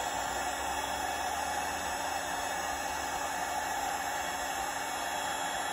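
Milwaukee heat gun running steadily, its fan blowing hot air as an even rushing noise onto heat-shrink tubing over a coax connector.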